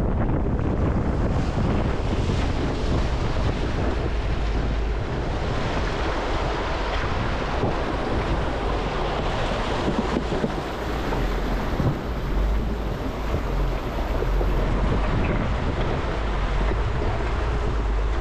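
Water splashing and rushing around a truck's front tyre as it drives through a shallow, rocky stream, with wind rushing over the microphone and a steady low rumble.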